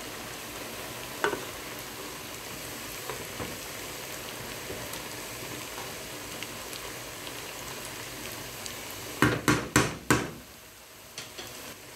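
Steady sizzling hiss of food cooking on a gas stove, with a wooden spoon knocking against the pan a few times about nine seconds in. It goes quieter near the end.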